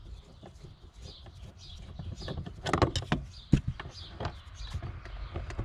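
Screwdriver backing a screw out of a 2006 Nissan X-Trail's plastic lower dashboard trim panel: scattered small clicks and plastic knocks, with a quick cluster of louder knocks about three seconds in.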